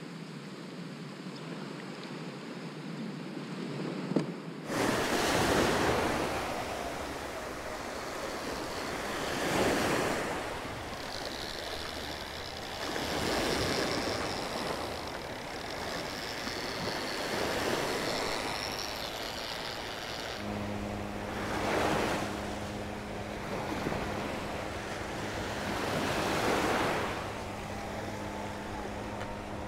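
Surf breaking and washing up on the beach in rolling surges about every four seconds. About two-thirds of the way in, a steady low hum joins the surf.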